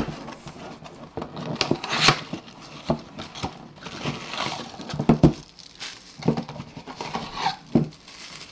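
Hands handling cardboard boxes: a small white box is pulled out of the case and opened, with irregular knocks and taps on the cardboard and bursts of paper and plastic rustling.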